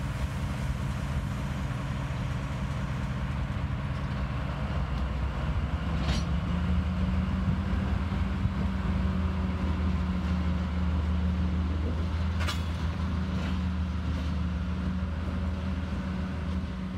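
TasRail TR-class diesel locomotives moving slowly while shunting: a steady engine drone that grows a little louder about six seconds in, with two brief sharp clicks about six and twelve seconds in.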